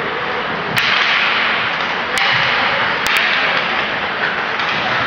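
Ice hockey play: skates scraping and carving on the ice, with a few sharp cracks of sticks on the puck, two of them close together about three seconds in.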